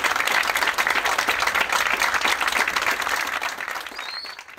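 Crowd applauding, many hands clapping together, fading away near the end.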